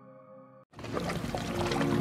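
Background music: a held, sustained piece fades low and cuts off about two-thirds of a second in. After a brief gap a new track begins and builds steadily in loudness.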